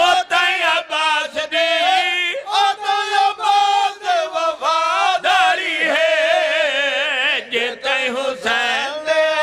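A group of men chanting a devotional refrain together in chorus, in long held, wavering notes.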